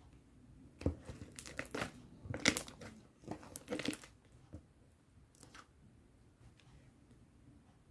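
Clear slime being worked by hand, giving a quick run of crackles and pops, then a few scattered ones.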